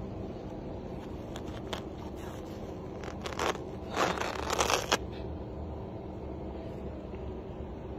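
Duct tape being pulled off and torn: a short rasp about three and a half seconds in, then a longer, louder rip from about four to five seconds.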